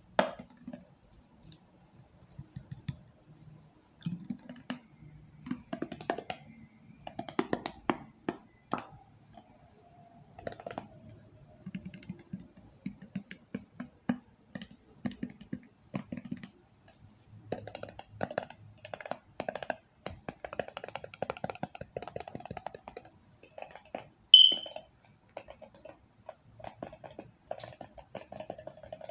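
Fingers and fingernails tapping on assorted objects in quick, irregular runs of light taps, with one sharp tap that rings briefly about three-quarters of the way through.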